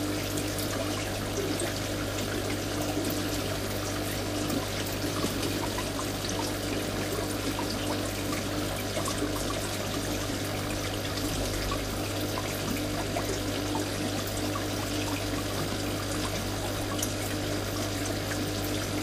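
Aquarium filter running: a steady trickle and splash of water into the tank over a constant low pump hum.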